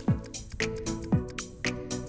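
Background music with a steady beat: a kick drum and snare about twice a second under sustained synth or keyboard notes.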